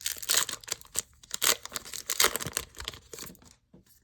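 Packaging of a Pokémon card check lane blister pack being torn open and crinkled: a quick run of rips and crackles that stops about three and a half seconds in.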